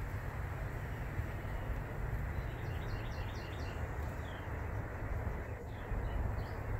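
Outdoor ambience: a steady low rumble with a bird singing a quick run of about five short chirps a little under halfway through, and a few single chirps after.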